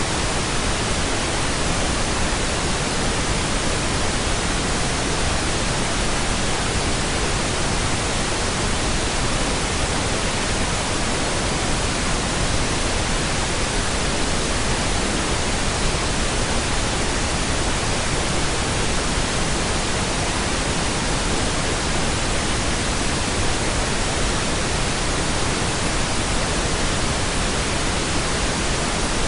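Steady pink noise: an even, unchanging hiss with no breaks or changes.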